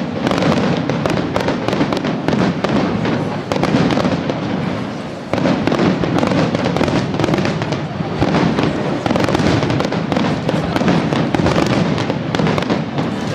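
Fireworks display going off in a dense, continuous barrage of bangs and crackling. The barrage eases briefly about five seconds in, then comes back suddenly at full strength.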